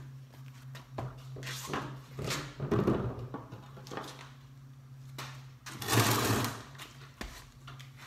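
Impressions four-blade ceiling fan running on low speed: a steady motor hum with scattered light clicks and ticks, and two louder noisy bursts about three and six seconds in.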